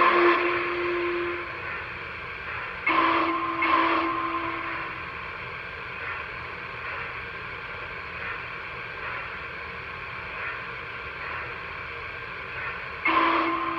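Electronic sound system of a Lionel TMCC Blue Comet O-scale model steam locomotive sounding its steam whistle: a whistle fading out at the start, a new blast about three seconds in that lasts a couple of seconds, and another blast beginning near the end, over a steady hiss.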